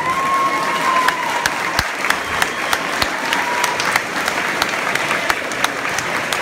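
Gymnasium crowd applauding and cheering as a dance routine ends, breaking out suddenly, with sharp claps close by. A high whistle sounds over it for about a second at the start, and again about two and a half seconds in.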